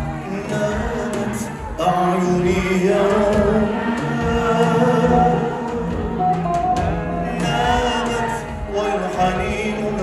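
Live band music with sung vocals; the music swells and grows louder about two seconds in.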